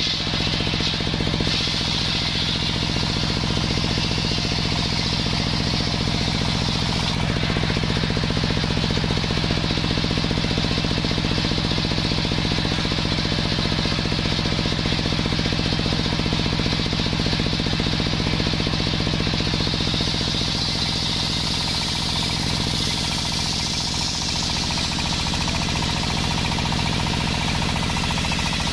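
Table-mounted circular saw ripping a sengon (albizia) log lengthwise. The spinning blade makes a loud, steady cutting noise over the constant drone of the machine driving it.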